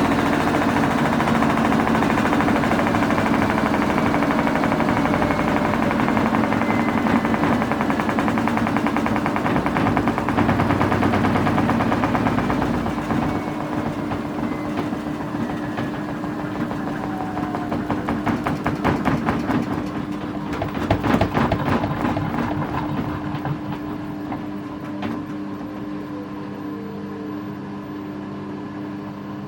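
Samsung EcoBubble front-loading washing machine winding down from a spin: the loud drum noise eases off and drops in pitch from about halfway, with a burst of rattling around two-thirds of the way through as the drum slows, leaving a quieter steady hum.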